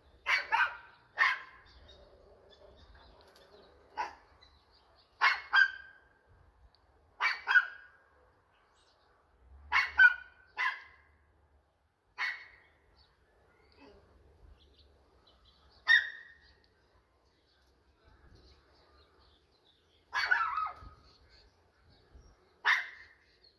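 A dog barking repeatedly: short sharp barks, some single and some in quick pairs, coming every one to four seconds at irregular intervals.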